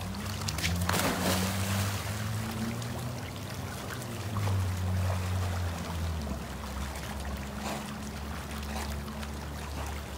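A German shepherd plunges into a swimming pool with a splash about a second in, then water lapping as it swims, over a steady low hum.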